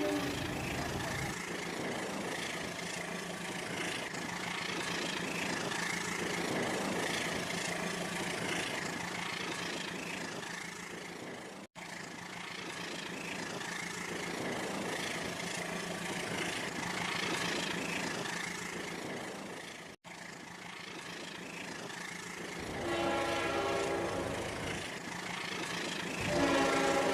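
Rail King toy train running on its track with a steady noise, cutting out for an instant twice. A horn-like toy train sound effect plays twice near the end.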